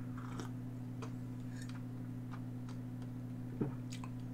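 Faint, irregular lip and tongue clicks from tasting a sip of hot tea, over a steady low electrical hum, with one soft knock about three and a half seconds in.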